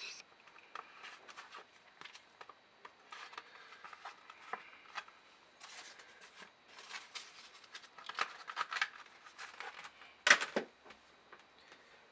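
Hands handling a phone case and its cardboard packaging: scattered scratchy rustles, scrapes and small clicks, busier in the second half, with one louder scrape about ten seconds in.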